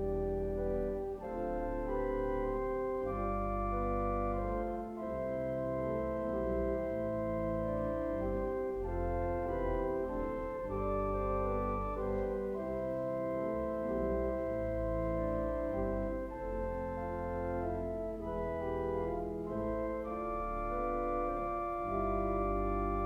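Organ playing slow, sustained chords, the notes held and changing every second or so.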